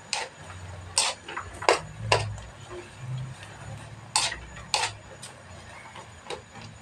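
Metal utensil knocking and scraping against a wok while breaking up noodles as they fry: irregular sharp clicks, the loudest about a second apart.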